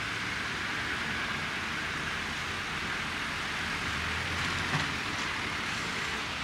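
Steady street traffic noise, with a low rumble from a passing vehicle around the middle and a brief knock about three-quarters of the way through.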